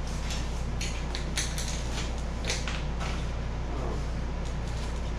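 A few light clicks and creaks as wooden skewers are pushed into rigid foam-board gunnel strips to tack them in place, over a steady low hum.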